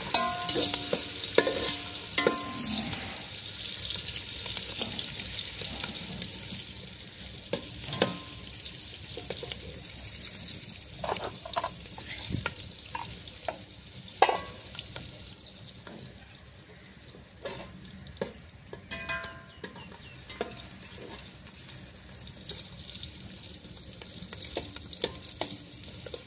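Sliced onions sizzling in a large aluminium pot over a wood fire, stirred with a metal perforated skimmer that scrapes and clinks against the pot. The sizzle is loudest for the first several seconds and then dies down.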